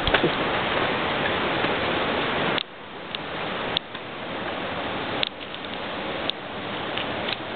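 Steady rushing noise of river water, which drops suddenly a little way in and then slowly builds again, with a handful of short, sharp clicks scattered through it.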